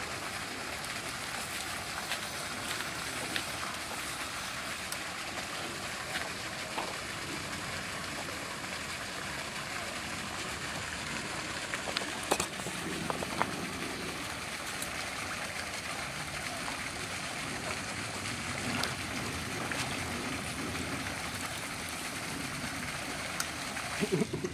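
Steady rushing of water from a pond aerator spraying at the surface. A few short clicks and one louder splash or knock about twelve seconds in, with another brief louder burst near the end.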